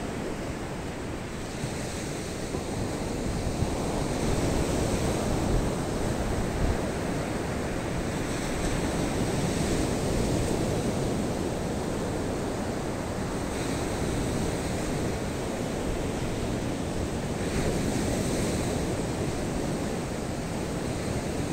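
Sea surf breaking and washing up a sandy beach, the wash swelling every four or five seconds, with wind rumbling on the microphone.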